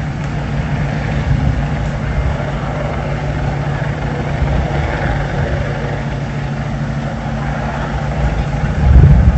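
Steady low engine rumble with a constant hum, swelling louder for a moment near the end.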